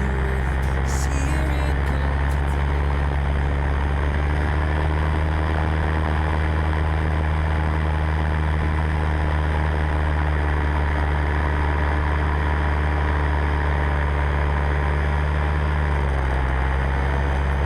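A paramotor's RD 135 two-stroke engine running steadily at cruise power in flight. Its revs dip briefly near the end and then pick up again.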